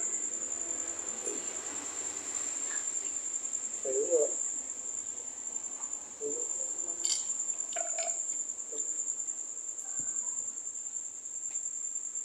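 Night insects chirring in one unbroken, high-pitched steady trill, with faint indistinct voices underneath, briefly louder about four seconds in, and a few light clicks a little past the middle.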